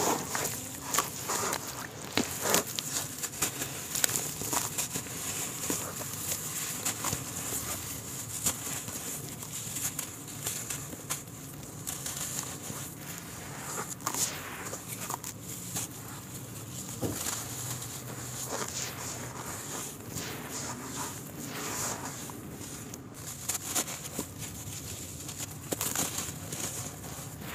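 Hands squishing wet mud and crumbling dry dirt clods in a plastic tub of muddy water: a run of small irregular crackles, crunches and squelches, with loose dirt pouring back into the tub.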